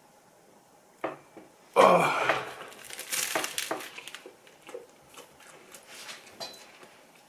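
Close-up eating and handling of food and tableware: a sharp crunching, crinkling noise about two seconds in, another around three seconds, then scattered small clicks and chewing noises.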